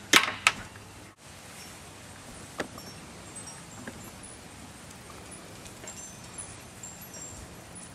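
Quiet outdoor ambience. Two sharp clicks come close together right at the start, and after them only a faint steady background with a few small ticks and short high chirps.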